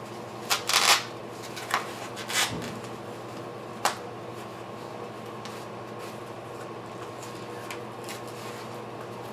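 Saucer swing parts being handled during assembly: a quick clatter about half a second in, then three separate clicks over the next few seconds, over a steady low hum.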